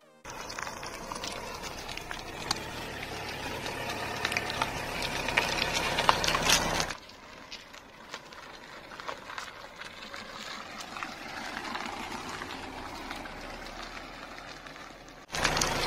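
Hyundai Verna sedan driving on a rough dirt hill road: engine running and tyres crackling over loose stones, growing louder over the first seven seconds. It then cuts to a quieter stretch of crackling, and a sudden louder rush of noise comes in near the end.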